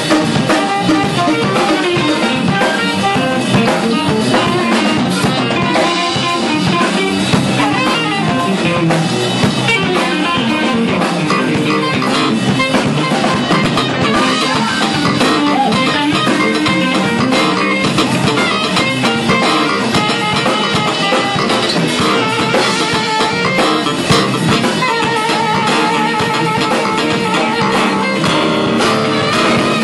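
Live band playing, with electric guitars and a drum kit, and a saxophone playing along with held notes.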